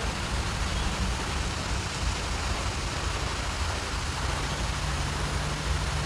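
Steady hiss of a pond fountain's tall water jet splashing down, mixed with rain, over a low rumble of wind on the microphone.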